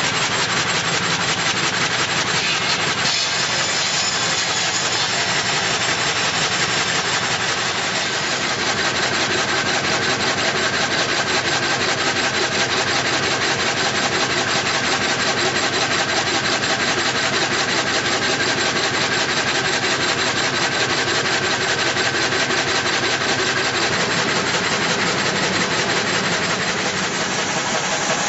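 Altai M450 multi-blade frame gang saw, a reciprocating frame of thin sash blades, sawing steadily through a cant to split it into boards. The sound is loud and even throughout, a fast, regular rhythm of blade strokes in the wood.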